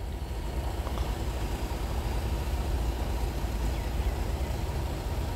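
Steady low rumble of a train's diesel locomotive engine running in the distance.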